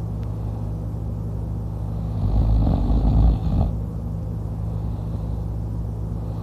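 A man snoring in his sleep, lying on his back with his mouth open: one long snore about two seconds in, lasting under two seconds, over a steady low hum.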